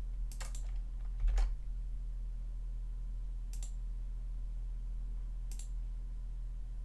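A few sparse computer mouse and keyboard clicks, single sharp ticks about a second in, then near the middle and near the end, over a steady low electrical hum.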